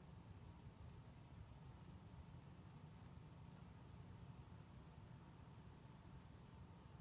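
Faint, steady, high-pitched trill of night insects such as crickets, over a low rumble.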